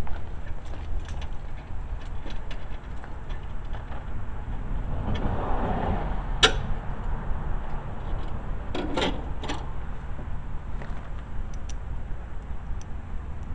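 Hand tools and metal parts clinking and knocking while spacers are fitted to engine motor mounts: scattered light ticks, one sharp knock about six and a half seconds in and a few more around nine seconds, over a steady low rumble.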